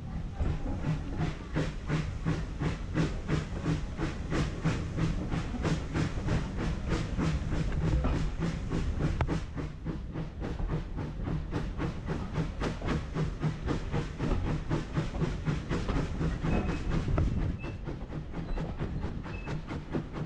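Steam locomotive working under steam, its exhaust chuffing in a steady rhythm of about two to three beats a second with steam hissing. The beats get somewhat quieter near the end.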